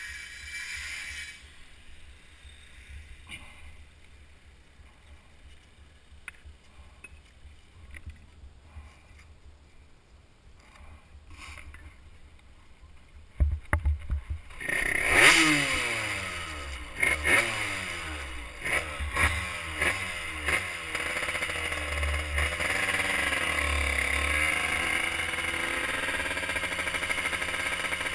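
Honda CR80 two-stroke engine in a YSR50 mini bike firing after a few sharp thumps about halfway through, revving hard and falling away, blipped up and down several times, then running steadily. Before it catches there are only faint rattles and clicks.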